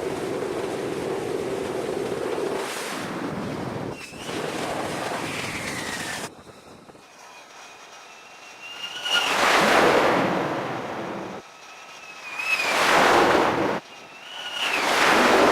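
Storm seas at sea: wind and waves rushing and breaking against the ship, with wind buffeting the microphone. In the second half come three big swelling rushes of wave and spray noise, each carrying a brief high whistle.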